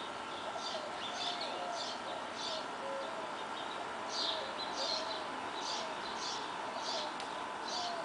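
Birds chirping, with short high chirps repeating about once or twice a second and lower, short gliding whistled notes among them, over a steady hum of traffic.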